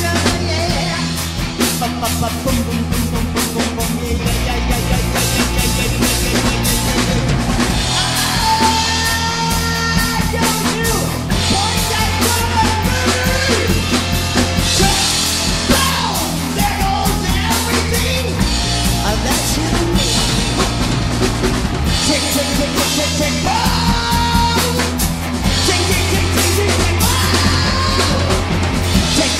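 Rock band playing: a Ludwig drum kit pounding with bass drum, electric guitars and bass, and a singer's voice coming in over it.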